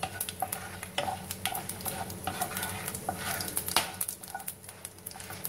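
Wooden spatula stirring whole spices (cumin, cloves, black peppercorns and dried red chillies) in a little hot oil in a kadhai, with frequent short clicks of the spatula against the pan over a steady sizzle. This is the tempering (tadka) stage, the spices browning in the oil.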